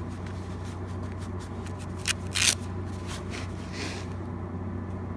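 Steady low electrical hum of welding equipment, with a couple of short rustling hisses about two seconds in.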